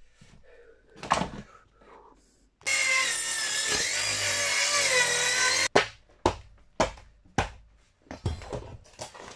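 Handheld circular saw running for about three seconds, its pitch wavering and dipping as the blade cuts through old wooden boards. It is followed by a string of sharp wooden knocks as cut boards are handled.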